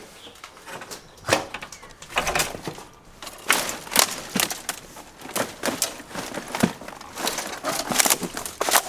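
Footsteps with irregular crunches and knocks, several close together in places, as a person walks and searches through a house.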